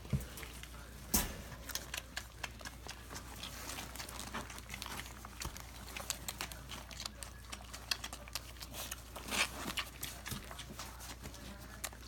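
A litter of puppies suckling from their standing mother: many irregular small wet clicks and smacks.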